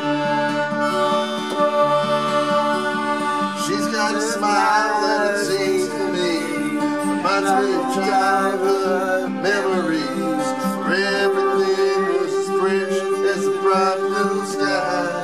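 Acoustic guitar and electronic keyboard playing together, the keyboard holding steady chords, with a man's voice singing over them from about four seconds in.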